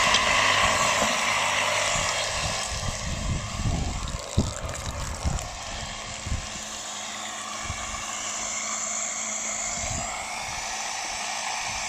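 A 24-volt DC drill motor driving a 3D-printed centrifugal water pump, running fast as it sucks air in the low water, with water splashing from the pipe into a bowl. Steady noise with a few dull thumps.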